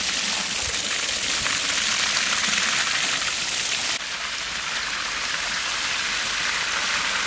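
Water from a garden hose spraying and splashing onto a large piece of beef offal as it is scrubbed by hand: a steady, loud hiss of splashing water. It drops slightly in level about four seconds in.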